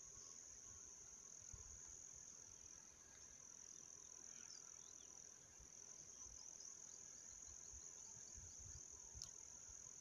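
Faint, steady, high-pitched chorus of crickets trilling continuously.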